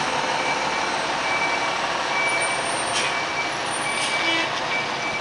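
Diesel fire engine running as it reverses, its backup alarm beeping at one steady pitch about once a second, with a few short air hisses from the truck.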